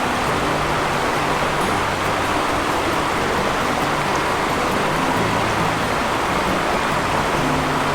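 A steady rushing hiss, like flowing water, with background music playing held low notes that change pitch every second or so.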